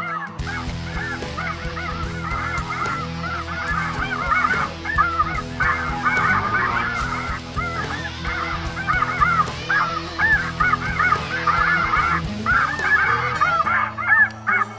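A large flock of snow geese calling, many short overlapping high honks at once, with a low steady drone underneath.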